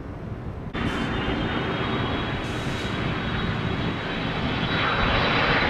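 Low wind on the microphone, then from about a second in a jet airliner's engines: a steady rumble with a thin high whine, growing louder toward the end.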